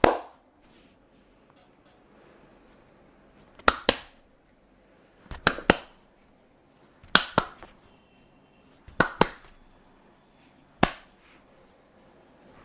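Hands striking the body during a massage: sharp slaps in quick pairs and triplets, repeated about every two seconds, six times in all.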